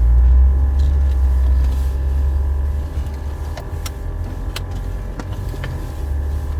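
Jeep Wrangler JK's engine and drivetrain rumbling steadily as it crawls along a rough trail, heard from inside the cab. The rumble eases about halfway through, and a few sharp knocks and clicks come through as the Jeep goes over rough ground.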